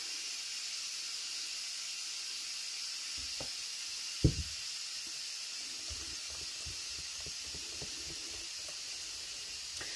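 Steady hiss of an Instant Pot venting steam. Over it, a spatula works thick, sticky bread batter in a stainless steel mixing bowl: one thump about four seconds in, then a run of soft scraping knocks.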